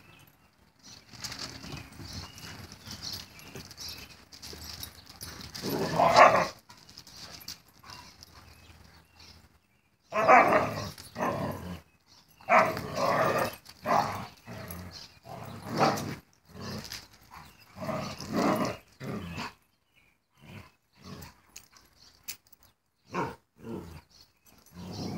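Dogs play-fighting, growling and barking in repeated short bursts, with the busiest stretch in the middle.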